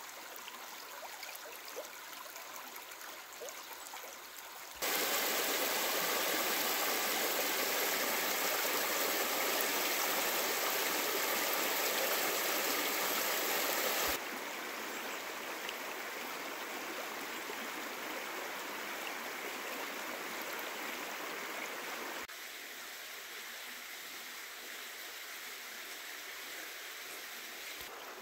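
Shallow creek running over gravel and rocks: a steady rush of flowing water. Its loudness jumps abruptly three times, loudest for about ten seconds starting about five seconds in, then dropping in two steps.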